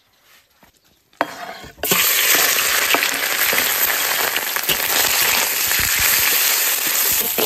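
Sliced fatty pork frying in a large iron wok. After a knock, a loud, steady sizzle starts suddenly about two seconds in as the meat hits the hot pan, and it is stirred with a metal spatula.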